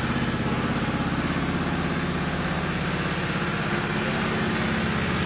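Palm kernel processing machinery running steadily: a low, even drone with a fast pulse.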